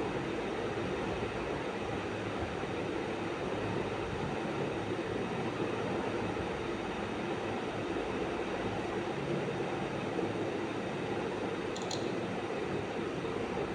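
Steady mechanical whirring noise, even throughout, with a brief high click about twelve seconds in.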